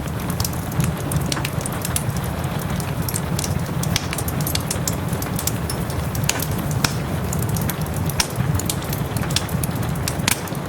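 Wood fire crackling with frequent sharp, irregular pops over the steady hiss and patter of rain.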